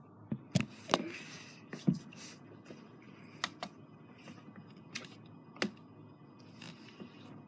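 Irregular light taps and clicks, about seven of them, bunched in the first two seconds and then spaced out, over faint room tone.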